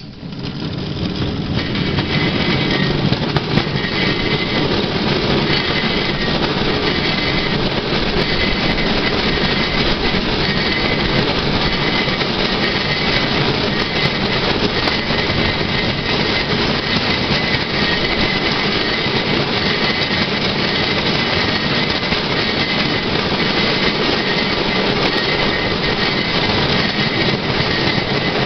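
Steel wheels of a pedal-powered Swedish rail bike (draisine) running along old rails: a loud, steady running noise that builds up over the first second or two as it gets moving, then holds.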